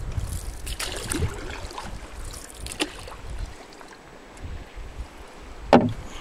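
Water splashing and lapping against a moving canoe's hull, with wind buffeting the microphone for the first few seconds. A few sharp knocks come through, the loudest near the end.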